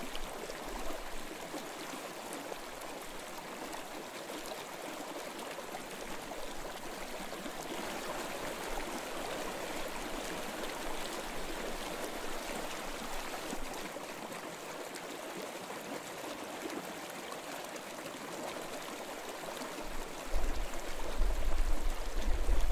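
A steady rushing noise. About twenty seconds in, a loud deep rumble comes in under it and becomes the loudest sound.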